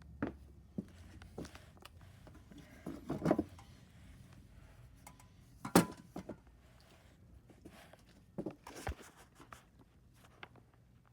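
Scattered knocks, thuds and brief rustling of objects being handled and moved about, with a cluster of knocks about three seconds in and one sharp, loud knock about six seconds in.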